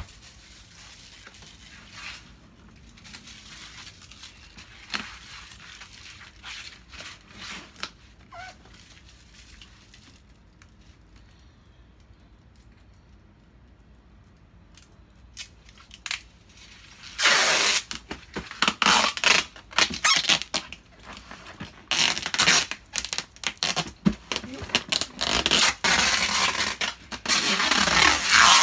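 Packing tape being pulled off the roll and pressed onto a cardboard box, with the cardboard scraping and flexing. A quiet first half holds only small clicks and rustles of handling, then loud, rapid tearing rasps of tape follow one after another.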